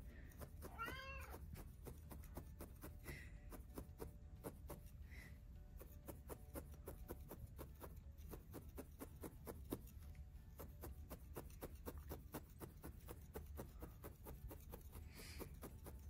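A cat meows once about a second in, a single call that rises and falls in pitch, with a few fainter short mews later. Underneath, a felting needle punches into wool on a felting pad in soft, rapid pokes, several a second.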